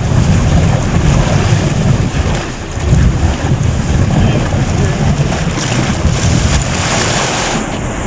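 Storm-force wind gusting hard across a phone's microphone during a squall, a heavy low buffeting that rises and falls with the gusts.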